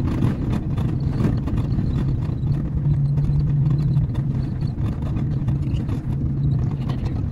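Engine and road noise inside a moving vehicle's cabin: a steady low drone with a rumbling hiss, slightly stronger around the middle.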